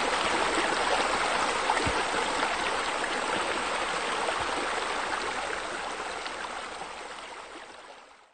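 Steady rush of running water, fading out over the last three seconds.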